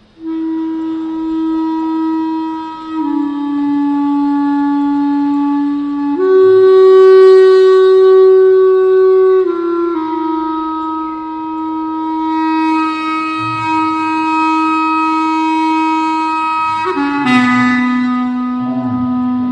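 Music: a wind instrument starting abruptly and playing a slow line of long held notes, each steady for several seconds before stepping to a new pitch.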